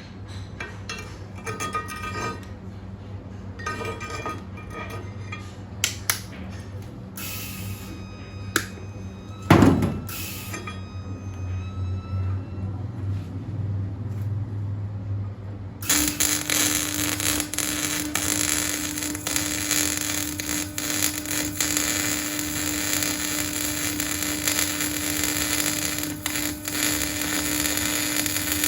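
Metal pieces clinking, with one sharp ringing strike of steel about ten seconds in. About sixteen seconds in, a welding arc strikes and runs with a steady crackling hiss over a constant hum.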